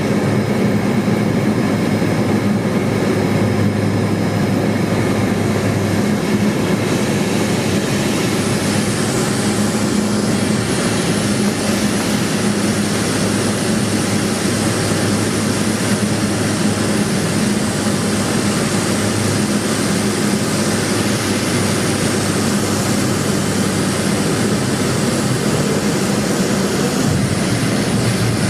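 Cockpit noise of a Cessna 210 Silver Eagle's single Rolls-Royce 250 turboprop engine running: a steady propeller and engine drone under a broad hiss of airflow. The hiss grows brighter about eight seconds in.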